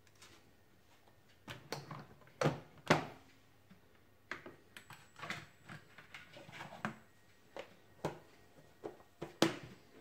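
Irregular sharp plastic knocks and clicks from a drip coffee maker being loaded and its hinged plastic lid shut, with plastic containers handled alongside. The loudest knocks come about two and a half and three seconds in, and again near the end.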